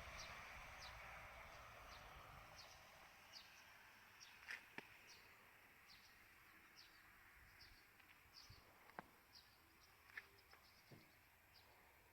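Very quiet outdoor ambience: a bird gives short, high chirps at a steady pace, about one every three quarters of a second, over a faint background hiss that dies away during the first few seconds. A few faint clicks are scattered through it.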